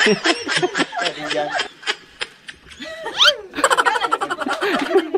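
A person laughing hard in quick repeated ha-ha sounds, trailing off about two seconds in. A quick rising glide in pitch follows, then more rapid laughing near the end.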